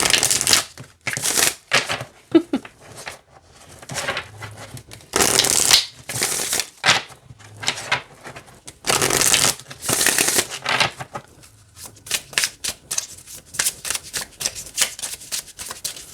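Oracle cards being hand-shuffled: repeated rustling slides of card against card in bursts of about a second, with small flicks and taps between them, the cards slipping smoothly.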